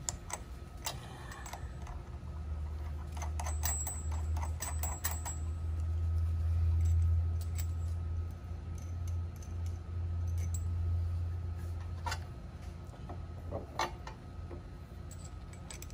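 Steel carriage bolts and their nuts and washers clinking and ticking against each other and the galvanized bracket as they are handled and slid into place, in a scatter of sharp clicks, busiest in the first few seconds and a couple more later. A low steady rumble runs underneath through the middle.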